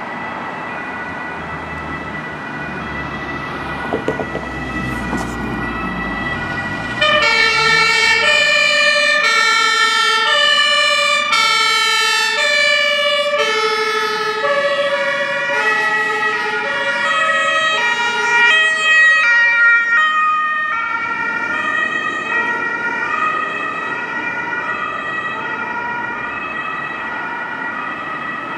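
German two-tone emergency sirens (Martinhorn) on a fire service convoy and ambulances, several sounding at once and out of step as the vehicles pass. They are fainter at first, become suddenly much louder about seven seconds in, and ease off again after about twenty seconds.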